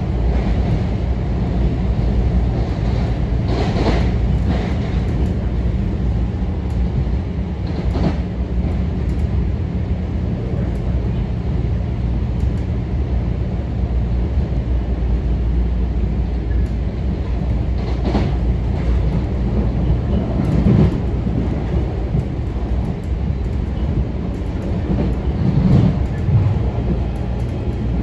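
Metro-North M7A electric train running, heard from inside the car: a steady low rumble of the wheels on the track, with a few louder clacks over rail joints.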